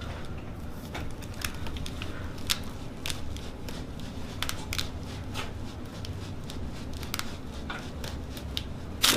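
A chiropractic adjustment: scattered light clicks and crinkles over a low steady hum, then one loud sudden crack near the end as the adjustment is made.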